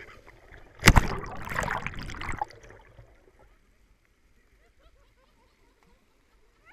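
A hard splash about a second in as a person drops off the rock slide into the river pool, followed by water churning and sloshing that dies away after a second and a half.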